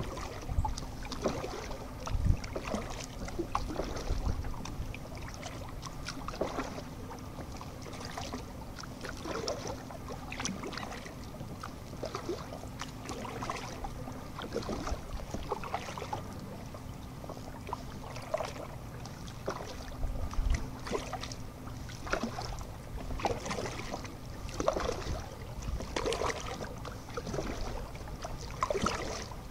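Kayak paddling on calm canal water: irregular small splashes and drips from the paddle blades, with occasional low buffeting thumps from wind or handling on the microphone and a faint steady low hum underneath.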